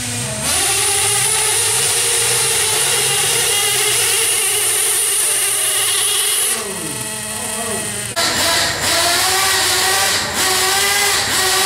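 An RC pulling truck's motor running at a steady high pitch as it drags the weight sled, winding down about six and a half seconds in. About eight seconds in, a second RC truck's small engine starts revving in short, uneven blips.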